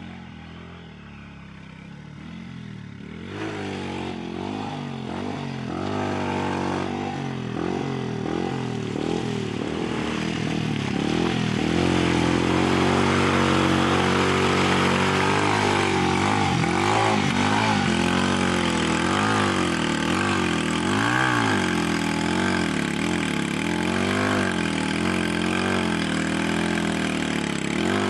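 150cc ATV engine revving up and down over and over as the quad churns through mud. It is fainter for the first few seconds and much louder from about three seconds in.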